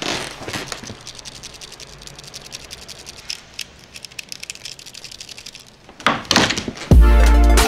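Metal strap rings on a Lumix camera rattling and clicking in quick fine ticks as the camera is handled and shaken. This is the rattle that makes them noisy when the camera is used for video. About six seconds in there is a louder clatter, and near the end music with a heavy bass beat comes in.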